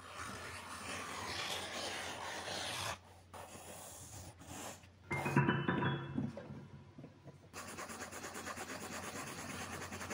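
Scratchy rubbing and rasping noises in bursts, like marks being made on paper. About halfway through, a short run of rising musical notes plays over it, and near the end a fast, fine crackling scratch takes over.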